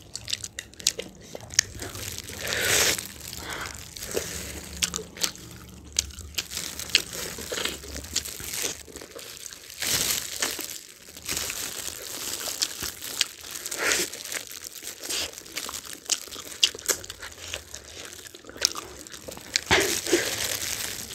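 Two people biting into and chewing sauce-covered spicy hot chicken wings, with irregular crunches and clicks, and plastic food-handling gloves crinkling.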